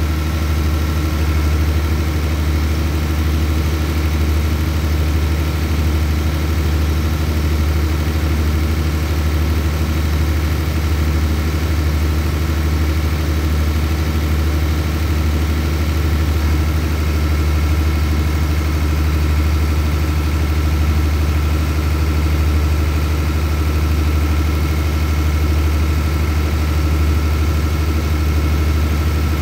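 Diesel engine of a standing passenger train idling steadily: a deep, even hum with a steady higher whine over it.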